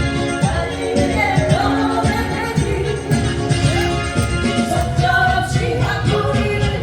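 Live band music with a steady beat and a woman singing a Korean trot-style song.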